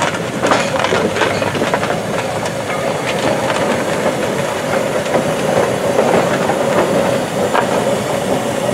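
Steam road roller moving along a gravel track, hissing steam with a clatter of its running gear and rolls, and a steady tone underneath.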